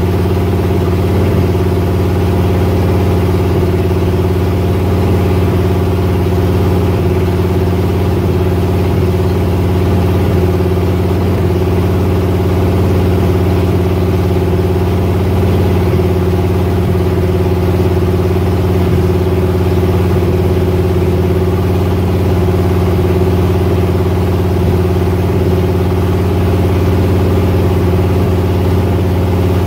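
BluePrint 355 small-block Chevy V8 with a Comp Cams XE274H camshaft running at a steady, unchanging speed during its camshaft break-in. It is loud through a makeshift open exhaust not yet connected to the side pipes.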